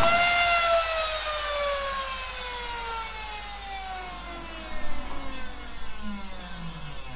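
Vacuum cleaner motor winding down after the CD on its spindle has shattered: a whine that falls steadily in pitch and fades, with a few light knocks about five seconds in.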